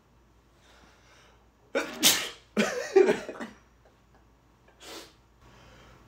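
A man sneezing, set off by pepper he has sniffed: a faint intake of breath, then two loud sneeze bursts close together about two seconds in, and a shorter burst near the end.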